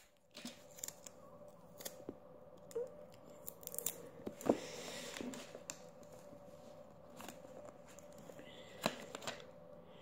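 Faint handling sounds of taping down a cardboard crayon box: sticky tape pulled and cut, with a short rasp about halfway and scattered small clicks and taps as it is pressed into place.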